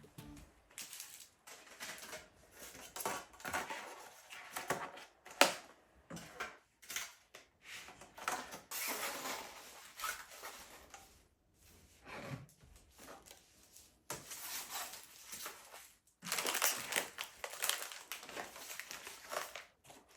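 Irregular clicks, taps and crinkling rustles of things being handled during food preparation, with a few sharper knocks, the loudest about five seconds in.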